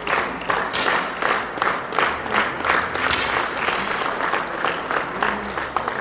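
Audience clapping in unison in a steady rhythm, about three claps a second.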